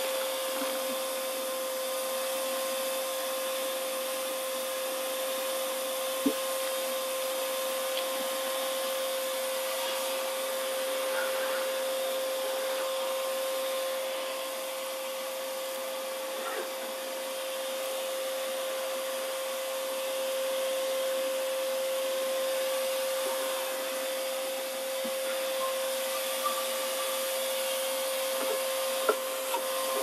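Ridgid HD1640 16-gallon wet/dry shop vacuum running steadily and loudly, a constant whine over the rush of air through the hose as it sucks up sawdust. A few sharp knocks sound along the way.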